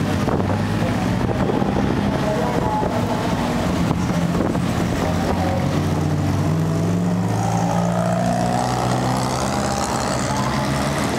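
Classic cars' engines running as they drive slowly past one after another, a steady engine drone, with one engine rising in pitch as it pulls away late on.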